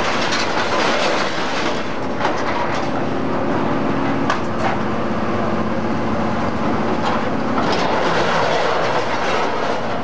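Heavy machinery working scrap metal: the steady drone of an excavator and a Y81F-3150 hydraulic metal baler running, with scattered clanks and rattles of scrap metal handled by the excavator's grapple.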